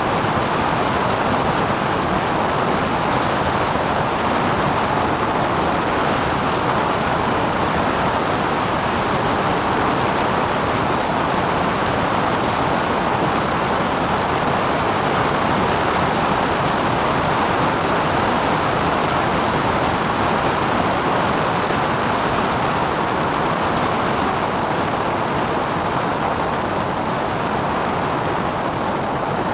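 Steady, loud cabin noise of a Cessna 177 Cardinal light aircraft in flight: engine and propeller noise mixed with wind rushing past the airframe, holding an even level with no change in power.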